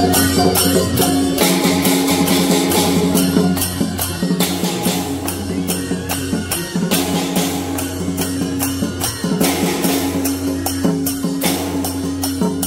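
Teochew big gong-and-drum ensemble playing: a suona's held reedy notes over a large drum, gongs and steadily repeated cymbal clashes.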